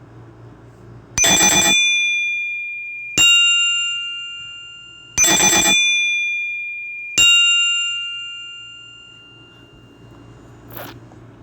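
A Nokia E5 ringtone played on a Samsung Galaxy A51 phone: a bell-like two-note chime, high then low, played twice, each strike ringing out and fading.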